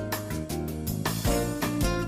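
Instrumental background music: guitar over a steady beat.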